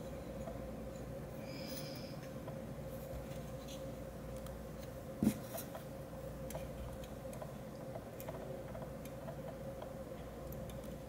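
Light clicks and small scrapes of a tube condenser microphone's internal parts being handled, with one sharper knock about five seconds in.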